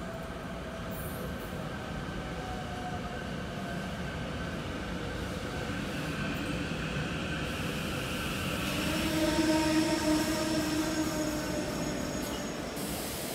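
Rotem Silverliner V electric multiple-unit train pulling into an underground platform and slowing to a stop: a steady rumble with several high whining tones that grows louder as the cars come alongside, loudest about nine to ten seconds in, then eases.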